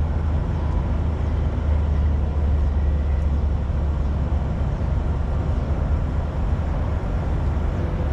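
Steady low rumble of road traffic, with no distinct events standing out.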